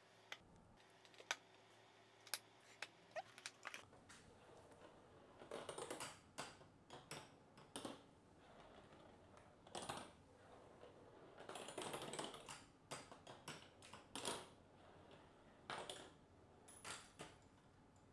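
Faint plastic clicks and rattles from a Makeway marble run: a few sharp single clicks as parts are fitted to the rails, then clusters of clicking and clattering as marbles run along the plastic rails and trick parts.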